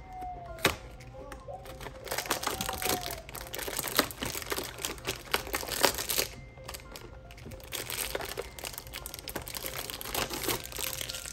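Clear plastic blister packaging crinkling and clicking in short crackles as small squishy toys are pulled from their pockets and handled, over faint background music.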